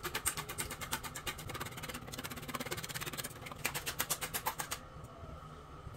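Wire whisk beating eggs in a bowl: a fast run of light clicks as the wires strike the bowl, fading out about five seconds in.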